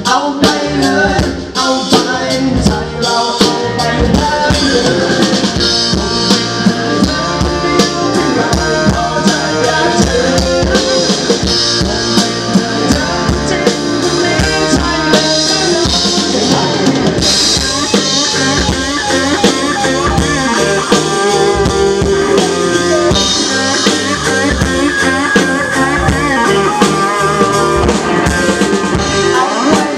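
Live rock band playing, with a drum kit and electric guitar to the fore.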